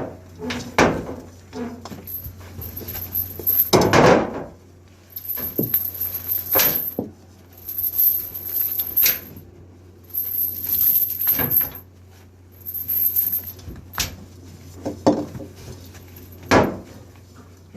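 Fishing net gear being handled and stowed on a trawler's deck: irregular clinks, knocks and rattles, over the steady low hum of the boat's engine.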